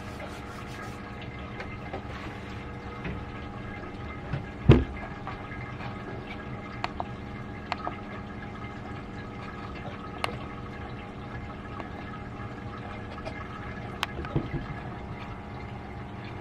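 Wort recirculating through a home-brew mash tun: a steady hum with liquid trickling and running. A few light clicks come through it, and one louder knock about five seconds in.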